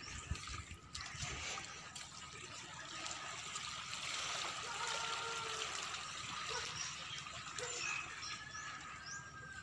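Water running in a steady trickling rush, a little louder around the middle.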